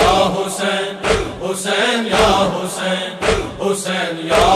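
Rhythmic matam chest-beating thuds, about two a second, under a chorus of voices chanting in time with a steady low drone.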